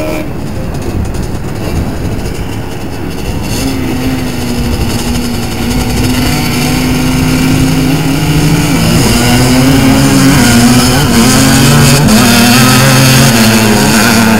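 Engines of two ATC three-wheelers revving at the drag-strip start line, then running hard as they accelerate away, getting louder in the second half with the engine pitch dipping and rising.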